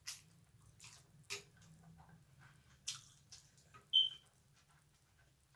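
A person slurping pho rice noodles and chewing: several short sucking slurps over the first three and a half seconds, then a brief high squeak about four seconds in.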